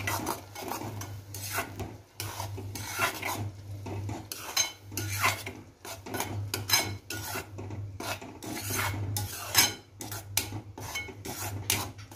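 Steel spoon stirring and scraping a thick onion and tomato masala paste around a pan while it is sautéed, in a quick, irregular run of scrapes against the pan.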